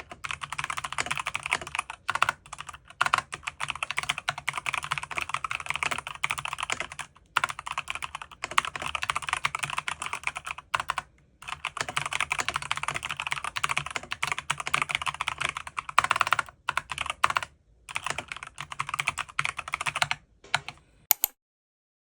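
Typing on a Langtu GK65 mechanical keyboard fitted with Outemu silent cream yellow switches: quick runs of keystrokes broken by a few short pauses, stopping shortly before the end.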